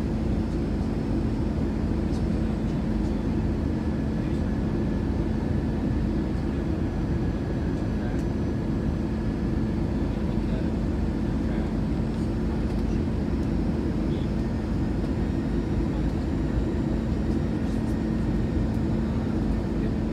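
Airbus A321 cabin noise: a steady low drone with a constant hum, unchanging throughout.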